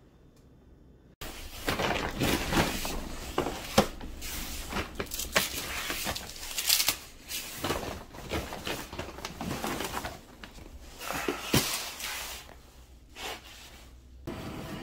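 Groceries being handled and set down on a tiled floor: packaging rustling and crinkling, with repeated sharp knocks and thumps of boxes and packs, starting about a second in.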